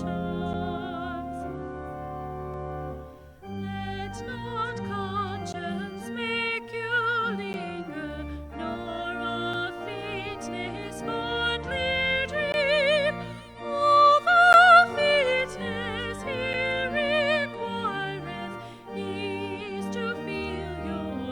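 Classical-style church music: a melody sung or played with wide vibrato over sustained accompaniment, swelling to its loudest passage about two-thirds of the way through.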